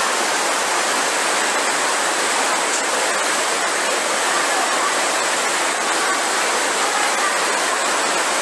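Flash-flood torrent of muddy water rushing down a street: a loud, steady rush of water.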